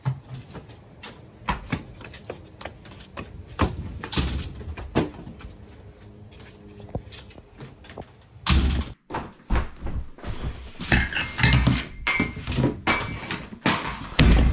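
Footsteps and small knocks, then a metal security screen door opening with a loud clatter about eight and a half seconds in. A cardboard box is handled with a run of knocks and scrapes, and it lands on a table with a heavy thunk near the end.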